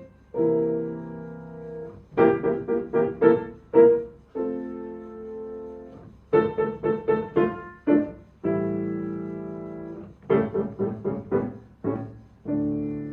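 Piano playing a short rhythmic phrase over and over: a run of five or six quick, detached notes, then a long held chord.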